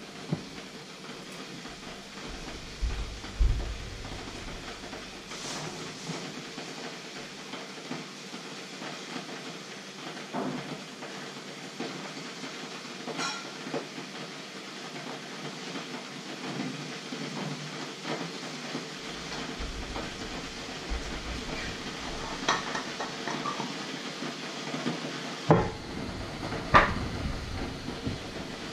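Steady hiss of water heating in a stovetop kettle, broken by scattered knocks and clinks of kitchen things being picked up and set down, the two loudest near the end.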